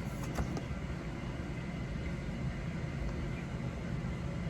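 Steady low background rumble, with a few faint clicks in the first half second.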